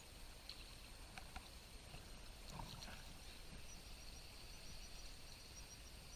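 Faint steady rush of stream water, with a few small clicks and a faint steady high hum.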